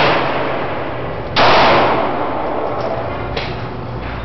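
Glock 23 pistol in .40 S&W being fired: one sharp shot about a second and a half in, then a fainter shot about three and a half seconds in. Each report is followed by an echo trailing off in the enclosed range.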